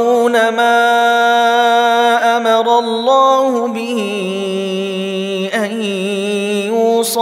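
Male reciter's voice in melodic Quran recitation (tajwid), chanting on long drawn-out notes that hold steady and then step up and down in pitch.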